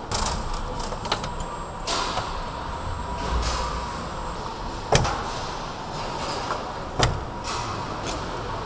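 Car assembly hall noise: a steady mechanical hum with a faint whine, broken by two sharp clunks about five and seven seconds in, like seat or trim parts knocking into place.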